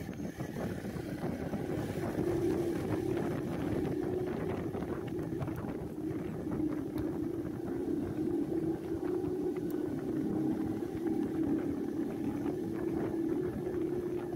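Motorboat engine running steadily, as on a bangka ride, with wind noise on the microphone; it grows louder about two seconds in.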